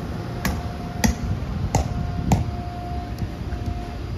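An inflatable bounce house's electric blower runs with a steady low hum, keeping the house inflated. Over it come sharp knocks about every 0.6 s, four strong ones in the first half and a faint one later.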